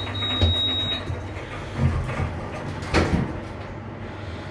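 A lift's doors sliding and knocking as they work at a landing. A high, steady electronic beep stops about a second in, and there is one sharp knock about three seconds in.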